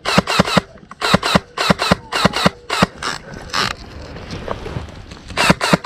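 Airsoft gun firing quick shots in short strings of two to four, about four or five shots a second, through the first three seconds. A stretch of rustling follows, then three more quick shots near the end.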